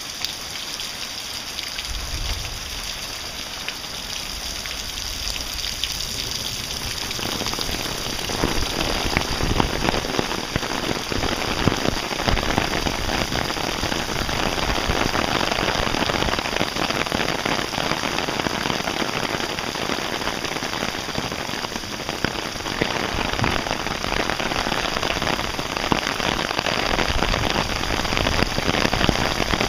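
Heavy rain pouring onto a paved street and pavement, a dense patter of drops that grows louder and heavier about seven or eight seconds in.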